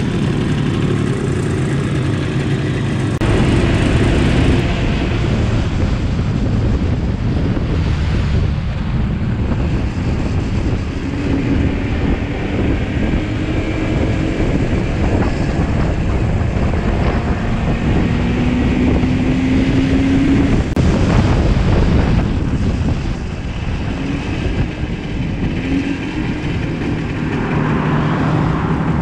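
Motorcycle engine running under way, its pitch rising several times as it pulls, with wind rushing over the microphone.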